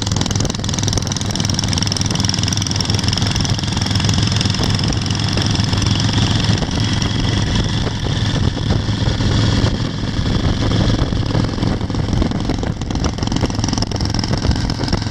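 Antique motorcycle engines running steadily at road speed, heard from a car driving alongside, over a steady rush of wind and road noise.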